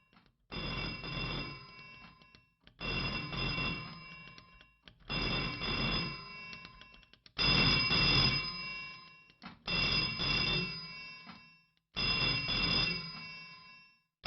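Telephone bell ringing six times, one ring about every two and a third seconds, each ring starting sharply and fading away before the next.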